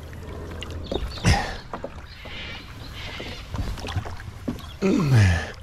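Kayak being paddled on a flowing river: paddle strokes splashing, a sharp knock about a second in, and near the end a loud, deep groan that falls in pitch.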